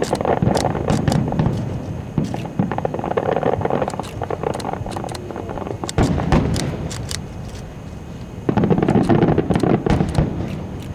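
Fireworks display: many sharp bangs and crackles scattered throughout, over a continuous rumble of bursts that swells about six seconds in and again in the last couple of seconds.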